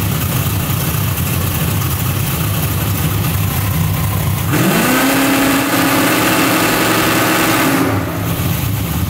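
Fox-body Mustang drag car's naturally aspirated V8 idling with a lumpy beat. About four and a half seconds in, its revs rise and hold steady, then ease back near the end. This is a bump-box test in which the 3/30-second timer wired to the Holley EFI bump function fails to give the intended bump, because the timer logic needs to be reversed.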